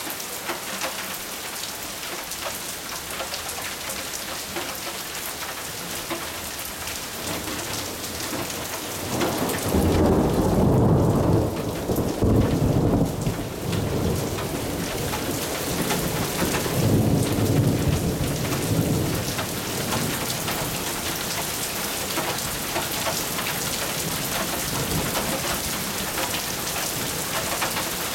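Steady rain falling. About a third of the way in a long rumble of thunder sets in, swells twice, then fades back under the rain.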